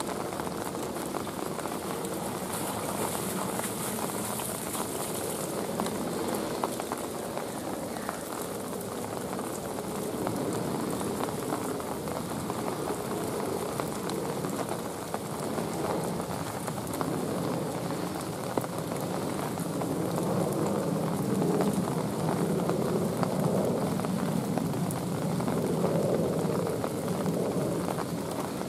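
Steady rain falling on pool water and rocks, a little heavier in the last third.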